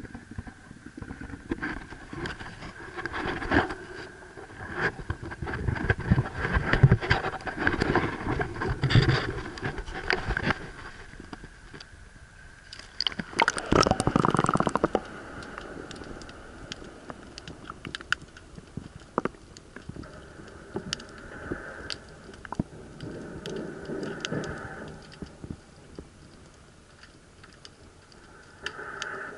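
Action camera being handled in a kayak, with irregular knocks and rustling. About thirteen seconds in comes a loud rush of water for a couple of seconds as the camera goes under. After that it is a quieter underwater hush with scattered sharp clicks.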